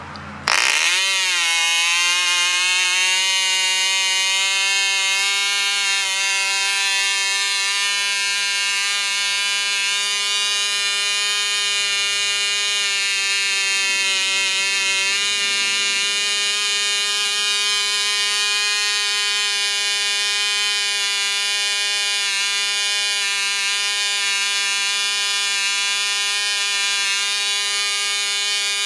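Cox .049 Babe Bee two-stroke glow engine starting up about half a second in, its pitch dipping and wavering for a moment, then running steadily at a high, buzzing whine.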